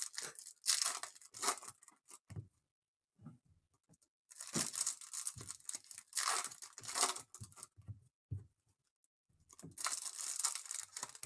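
Shiny plastic trading-card pack wrappers being torn open and crinkled by hand, in three spells of tearing and crackling with short quiet pauses between them.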